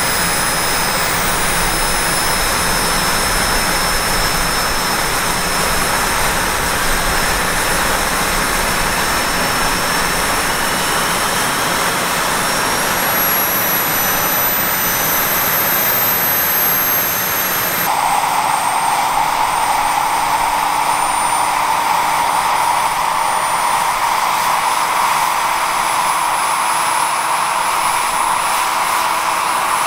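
Turbine engine of a large-scale RC Bell 206 JetRanger helicopter running on the ground, a steady high whine over a rushing noise that rises slowly in pitch as the main rotor spins up. A little over halfway through the sound changes abruptly to a steadier whine with a stronger mid-pitched rush.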